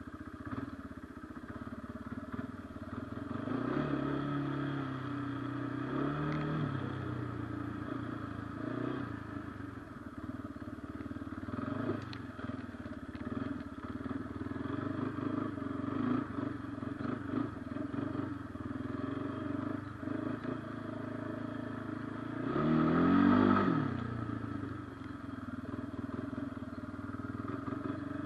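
2014 Kawasaki Brute Force 300 ATV's single-cylinder four-stroke engine running at low riding speed, blipped up a few times. The loudest is a quick rev that rises and falls about three quarters of the way through. Occasional sharp clicks are heard.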